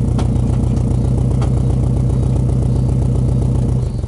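Subaru Impreza WRX Type RA's turbocharged EJ20 flat-four idling steadily, its exhaust heard at the rear through a large single tip, then stopping near the end as the engine is switched off.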